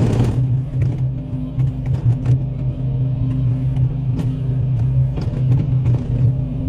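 Excavator engine running steadily under load, with several short sharp cracks and knocks through it.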